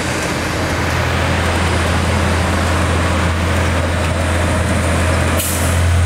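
Heavy diesel engine of a concrete pump truck running steadily with a deep, even hum and a broad rushing noise, with a short burst of hiss near the end.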